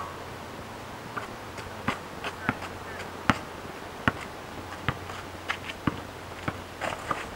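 Basketball dribbled on pavement: a steady run of sharp bounces, a little faster than one a second, starting about a second in.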